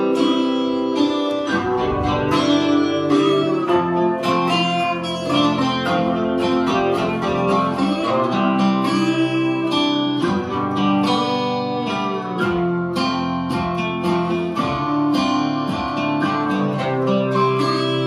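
Country song with strummed and picked acoustic guitar, played back through a JBL Flip 5 Bluetooth speaker during a sound test and picked up by a phone's microphone.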